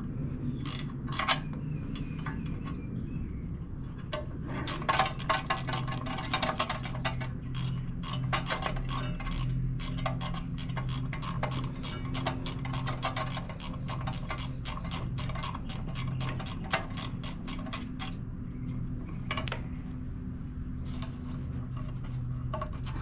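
Ratchet wrench clicking steadily, about four clicks a second for much of the time, as a small bolt is worked loose by hand, with a few scattered metal clinks before and after. A steady low hum runs underneath.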